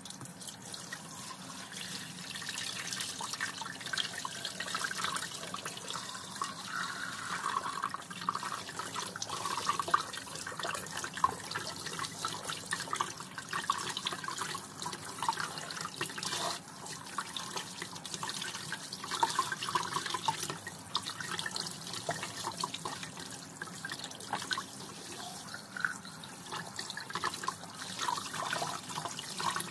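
Kitchen faucet running steadily through a pull-out spray head onto a whole raw chicken in the sink, with splashing and wet squelching as hands rub and turn the bird under the stream.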